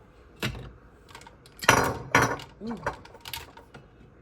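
Household items being set down and shifted into place on a board: a few separate clattering knocks with a short rattling scrape, the longest about halfway through.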